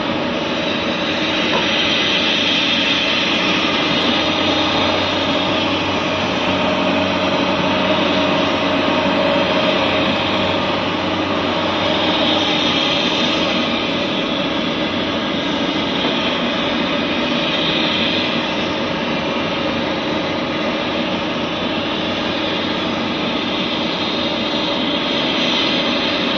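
Tata Hitachi hydraulic excavator running under load as it digs and swings, a steady engine drone with a few held tones that swells a little now and then.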